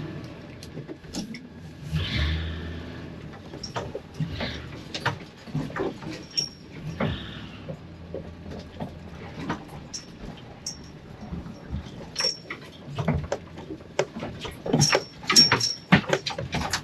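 Ford E350 step van driving slowly over a rutted, icy track: the engine revs up in the first few seconds, then many sharp knocks and clatters of the van body and loose contents jolting over the bumps, loudest near the end, with a few brief high squeaks.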